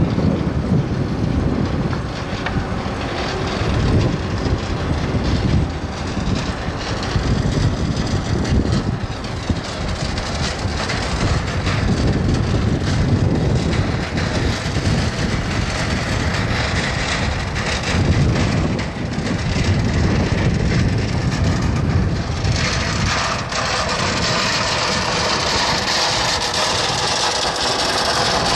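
Forklift engine running as it slowly tows an unpowered railcar along dock rails, with wind rumbling on the microphone.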